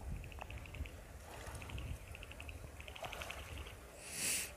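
Rapid high chirping in short rattling trains, about ten chirps a second, each train repeating every second or so over a low rumble. A brief loud hiss about four seconds in is the loudest sound.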